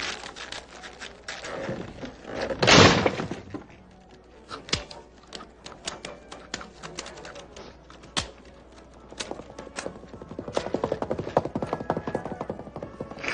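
Exaggerated crunching, scraping and knocking of metal being bitten and chewed, as an iron bench vise is gnawed: a string of sharp clicks and knocks, a loud crunch about three seconds in, and a fast run of small clicks near the end.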